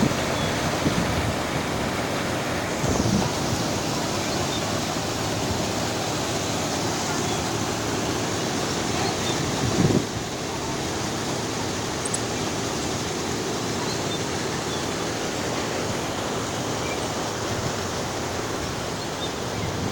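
Waterfall rushing steadily: a dense, even sound of falling water, with a couple of brief low thumps at about three and ten seconds.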